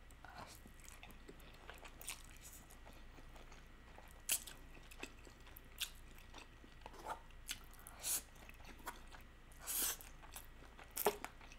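Faint, close-miked mouth sounds of a person eating stir-fried instant noodles: slurping and chewing, with soft wet clicks and smacks scattered throughout and a few short, louder bursts.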